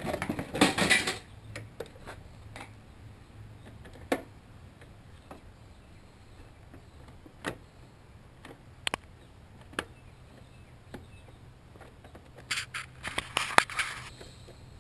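Handling noise from work on a self-propelled lawnmower's front drive: a burst of rattling and scraping at the start, scattered single metallic clicks and clinks, and another cluster of rattling near the end.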